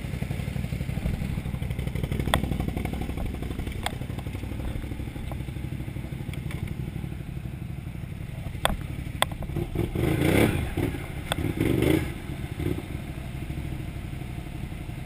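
A Can-Am Renegade XMR 1000R's V-twin engine idling steadily, with a few sharp clicks scattered through and a couple of louder rough bursts about ten and twelve seconds in.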